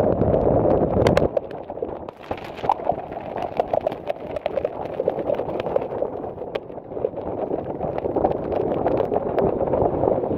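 Heavy rain and spray spattering on the camera and rain gear in a storm, a dense patter of drops. Wind buffets the microphone for about the first second.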